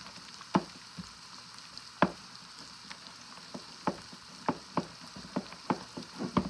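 A spoon stirring thick peanut butter and maple syrup in a plastic mixing bowl, knocking against the bowl at uneven intervals, about one or two knocks a second, over a steady faint hiss.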